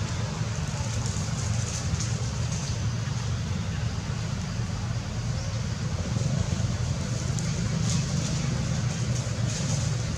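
A steady low rumble with an even hiss over it, an outdoor background noise with a few faint crackles.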